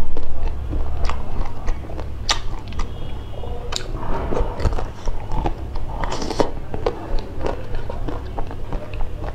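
Close-miked eating: a person bites into a small chocolate-coated cube and chews it, with scattered sharp mouth clicks and wet smacks. There is a brief low rumble at the very start.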